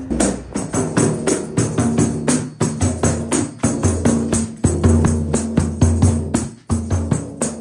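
Tambourine with metal jingles struck by hand in a quick, steady rhythm, over background music with a bass line.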